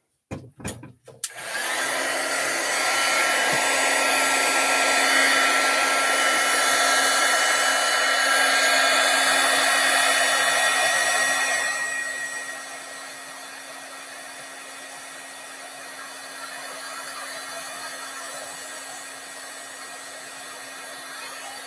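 Embossing heat gun running, a steady rushing blow with a low hum, as it melts embossing powder on a swatch card. It starts about a second in and gets noticeably quieter about halfway through.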